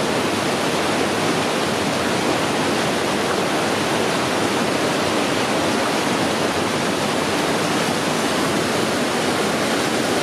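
A creek's water rushing over small rapids: a steady, even rush.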